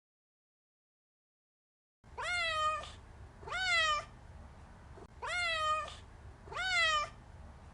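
A domestic cat meowing four times, each meow rising quickly in pitch and then holding or sliding down, evenly spaced over a faint background hiss. The meows start after about two seconds of silence.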